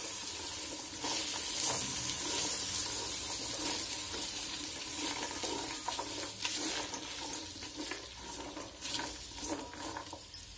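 A spatula stirring diced vegetables in a steel pot, scraping repeatedly against the metal, to mix in the salt. Under it the vegetables keep sizzling in hot oil, and the stirring eases off near the end.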